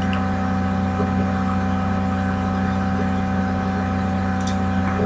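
Steady low hum with several fixed tones under it, the recording's constant background noise. Two faint clicks come through it, one right at the start and one about four and a half seconds in.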